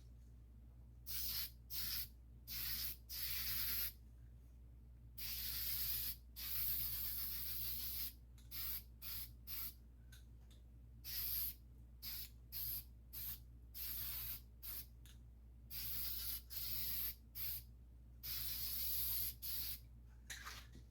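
Aerosol spray-paint can (rattle can) hissing in a long run of short bursts, with a few longer passes of a second or two, as a small motorcycle bracket gets a coat of paint.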